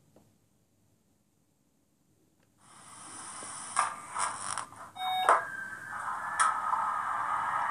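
ESU sound decoder in a Liliput H0 Westbahn Stadler KISS model train playing electric-multiple-unit sounds through its small speaker, which sets in about two and a half seconds in. A steady hiss runs with several sharp switching clicks and a short beep about five seconds in, typical of the train powering up while standing.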